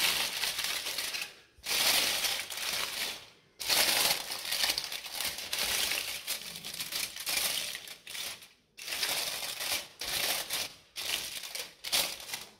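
Aluminium foil crinkling as hands press and crimp it over the rim of a bowl, in several rustling stretches of a second or two with brief pauses between.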